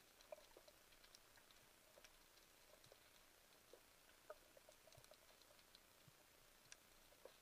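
Faint underwater ambient sound: irregular small clicks and crackles of the seabed, with a few sharper pops.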